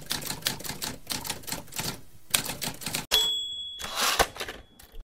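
Typewriter sound effect: keys clacking at about four strokes a second, then about three seconds in a single ding of the carriage bell that rings on, followed by the rasp of the carriage being returned.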